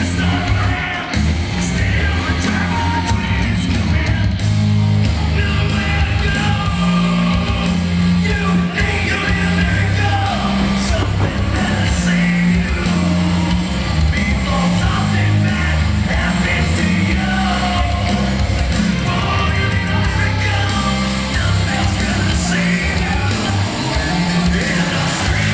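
Loud music with singing and a heavy bass line.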